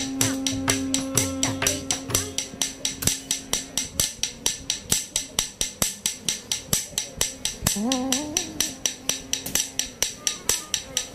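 Bharatanatyam practice rhythm: small metal cymbals struck in a steady beat of about four strikes a second, each with a bright ring. A held note sounds under the beat for the first few seconds, and a short melodic phrase comes in about eight seconds in.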